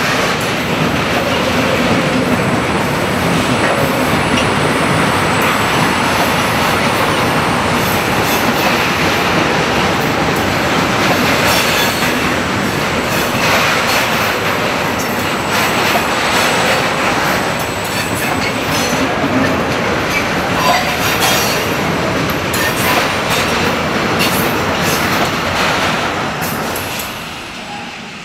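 Freight train of loaded bogie tank wagons rolling past: steady steel-wheel rumble with repeated clicks as the wheels cross rail joints. The sound falls away near the end as the last wagon passes.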